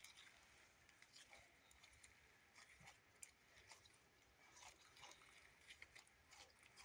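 Faint sticky clicks and crackles of butter slime being kneaded and stretched by hand, coming irregularly several times a second.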